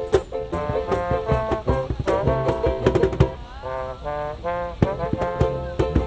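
Small street band of tuba, trombone, banjo and cajon playing a tune. The trombone stands out over the tuba's bass line and a steady beat.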